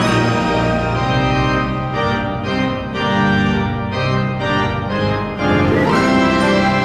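Background music: sustained keyboard chords, growing fuller about five and a half seconds in.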